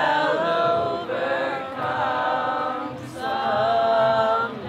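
A crowd of marchers singing together without accompaniment, many voices holding long notes in three phrases with short breaks between them.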